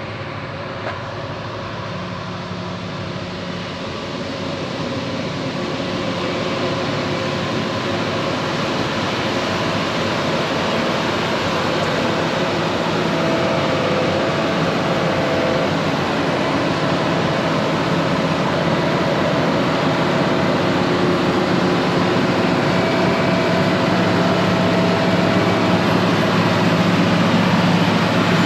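Heavy farm machinery engine running steadily under load, with a faint whine above it, gradually getting louder as it comes closer.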